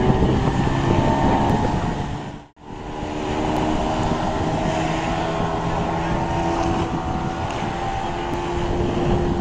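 Small outboard motor on a mini speed boat running steadily at full speed, with wind on the microphone. The sound cuts out for a moment about two and a half seconds in, then carries on.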